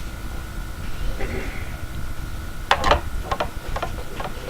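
A few short knocks followed by several light clicks over a steady faint hum.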